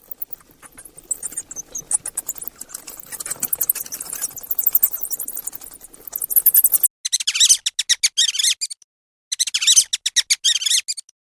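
Mice squeaking: rapid, very high-pitched squeaks over a faint rustle for the first six-odd seconds, then two bursts of fast squeaking of nearly two seconds each with short silences between.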